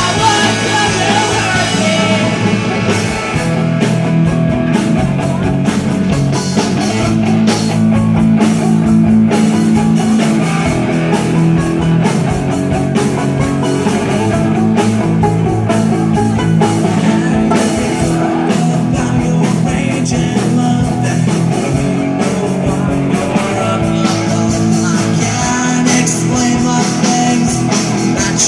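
Loud live rock band playing, with electric guitars, drums with frequent cymbal hits, and singing.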